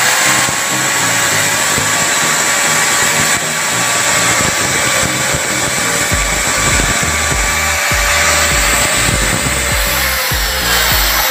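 Repaired junk-shop electric angle grinder switched on and running free, spinning up to a steady high whine and starting to wind down near the end. It runs, showing that the repair works.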